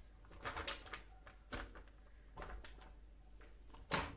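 Plastic packet crinkling and rustling as it is cut open with a knife and handled: a few short faint rustles, the loudest near the end.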